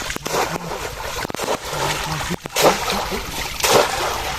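Shallow pond water splashing as fish are grabbed by hand, a few sharp splashes with the loudest a little past halfway and about three-quarters through.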